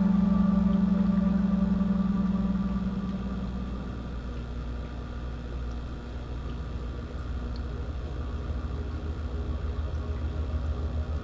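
Slow ambient background music of low sustained drones: a held low tone fades out over the first few seconds, and a low pulsing drone swells toward the end.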